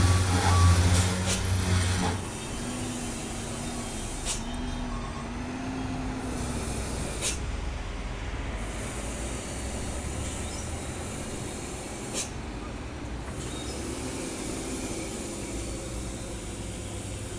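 Loaded diesel dump truck's engine working as it climbs a dirt haul road: loud at first, then running steadily with its note rising and falling. A few brief sharp clicks.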